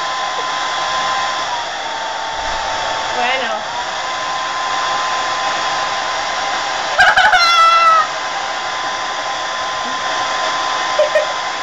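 Handheld hair dryer running steadily: a constant rush of air with a steady motor whine. About seven seconds in, a loud high squeal lasting about a second, falling slightly in pitch, rises over it.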